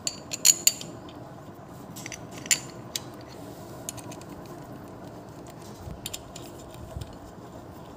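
Small metal clicks and clinks of 8 mm bolts and a socket tool as the bolts of an oil filter cover are threaded back in by hand. The sharpest clicks come in the first three seconds, with fainter ticks after that.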